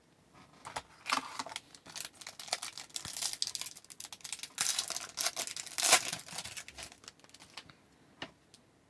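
Foil wrapper of a trading-card pack crinkling and tearing as it is opened, with cards rustling as they are handled. The sound is an irregular run of short crackles, with a few louder bursts of crinkling.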